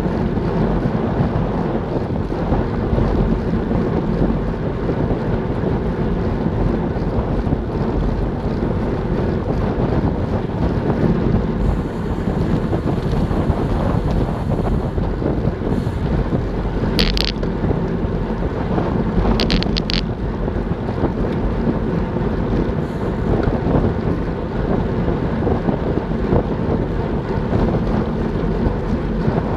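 Steady, loud wind rushing over an action camera's microphone on a road bike descending at about 40 km/h. A few brief high chirps cut through about two-thirds of the way in.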